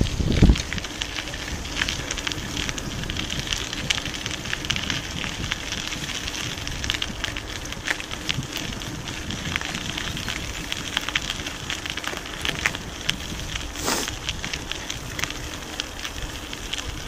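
Mountain bike rolling along a gravel dirt track: a steady crackle of tyres on grit with many scattered small clicks, and one sharper knock about fourteen seconds in.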